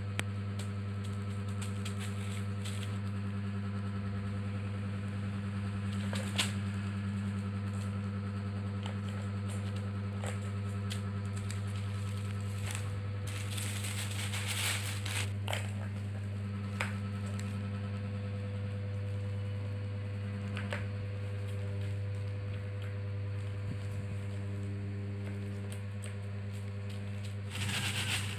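A kitten batting at a plastic ball-track toy on a plastic sheet: scattered light clicks and taps, with crinkling of the plastic sheet about halfway through and again near the end. A steady low hum runs underneath.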